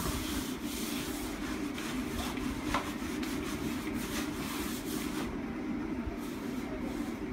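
Hand rubbing and kneading crumbly flour dough in a large metal bowl, with soft scraping and rustling over a steady low hum.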